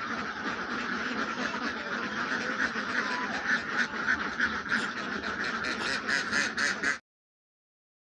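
A large flock of Khaki Campbell and Jinding laying ducks quacking over one another in a dense, continuous chorus, busier in the second half. The sound cuts off suddenly about seven seconds in.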